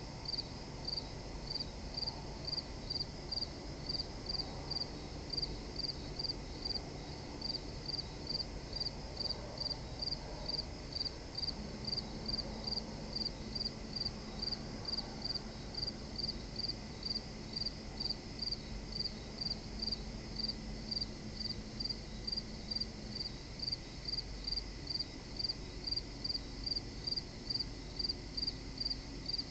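An insect, cricket-like, chirping steadily in short high chirps at an even rate of about two a second. A faint low steady hum comes in about twelve seconds in and fades out about eleven seconds later.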